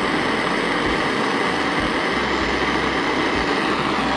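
Propane torch flame burning with a steady hiss as it heats a brass-to-stainless joint for silver brazing.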